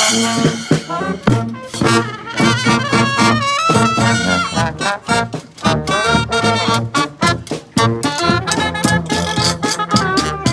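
Brass street band playing a lively second-line tune: trombones and trumpets carrying the melody over a steady drum beat.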